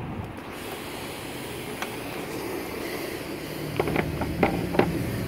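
Steady background noise, with a low hum coming in about halfway through. A few sharp clicks and knocks near the end come from a car-wash vacuum motor being handled as it is taken off its housing.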